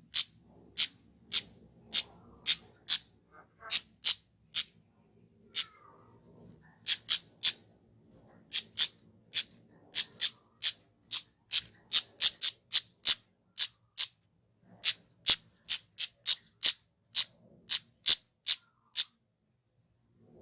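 A kemade (flowerpecker) calling: short, sharp, high-pitched 'tsit' notes repeated about two a second, with a few brief pauses, stopping just before the end.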